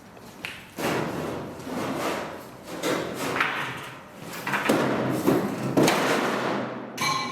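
Objects being handled and moved, making a run of scraping, knocking sounds, then a short metallic ring near the end.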